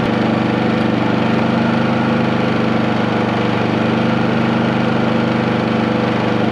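Cummins Onan P4500i inverter generator running steadily, heard close up: an even engine drone with a constant pitch.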